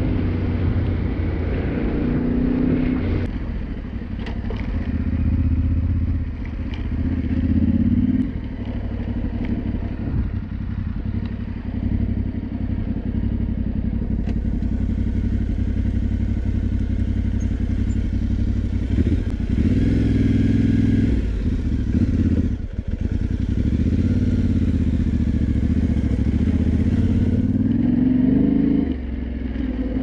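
Yamaha Ténéré 700's 689 cc parallel-twin engine running on the move, its pitch climbing and falling several times as the throttle is opened and eased off, with a brief drop a little past the middle.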